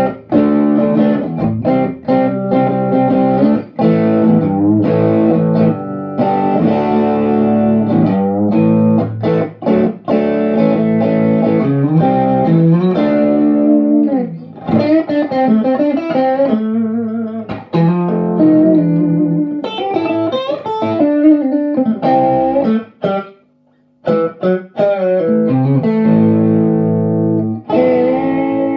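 Electric guitar played through a Fuzz Dog Sweet Honey overdrive pedal: overdriven chords and riffs, with a brief break about three-quarters of the way through, ending on a held chord that rings on with a slight waver.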